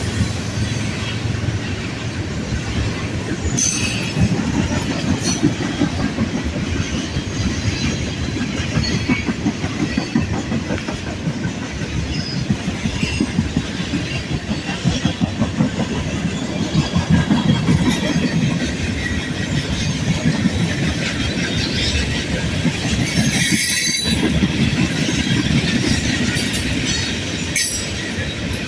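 Loaded coke train's freight cars rolling past: a steady rumble of steel wheels on the rails, with a few sharp clanks, about four seconds in and twice near the end.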